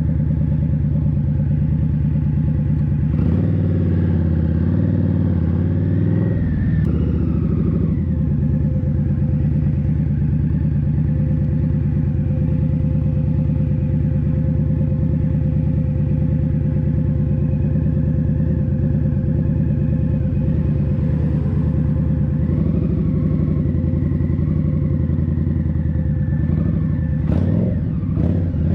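Indian Scout Bobber's V-twin engine running steadily, its pitch shifting briefly a few seconds in and again near the end.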